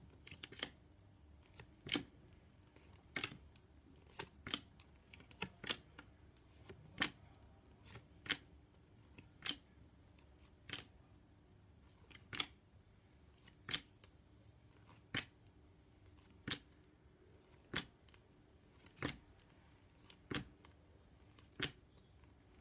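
Flashcards being flicked over one after another at a quick, even pace: a sharp flick about every second and a quarter, with a faint steady hum underneath.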